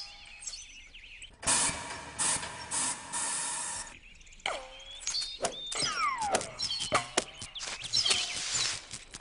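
Cartoon insect sound effects. About a second and a half in, a hissing noise lasts a couple of seconds. After that comes a run of squeaky whistled chirps gliding up and down, the insect characters' voices.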